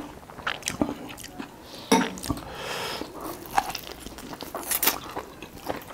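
Close-up eating sounds: chewing and biting into roast duck with wet mouth clicks and crackles, and a drawn-out slurp of thukpa noodles about two and a half seconds in.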